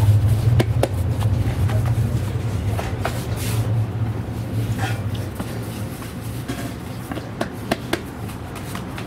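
Hands patting and pressing pizza dough into flour on a steel counter, with scattered soft knocks and clicks. Under it runs a steady low hum that fades about halfway through.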